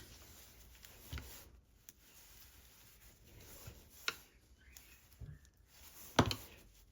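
Scattered light clicks and taps of small screws and a screwdriver on a plastic radio casing as screws are fitted, about five sharp clicks with the loudest near the end.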